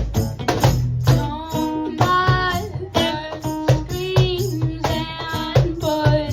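Live acoustic music: a voice singing long held notes over guitar and steady cajon beats.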